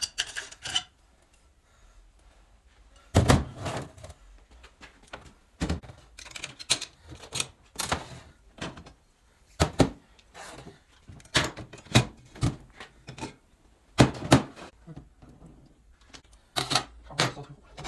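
Irregular knocks and clanks of tools and parts being handled during disassembly of a Mercedes 722.6 five-speed automatic transmission, in clusters with short pauses between.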